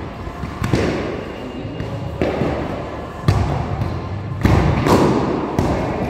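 Plastic training swords and round shields knocking together in group sparring, a sharp hit every second or so with a long echo after each.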